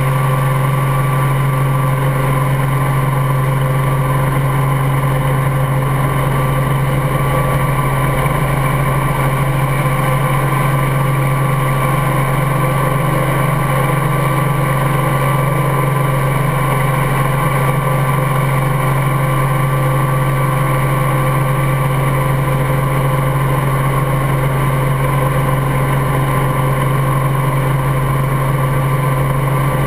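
Helicopter in flight: a loud, steady drone of rotor and engine with a strong low hum and fixed higher tones, unchanging throughout.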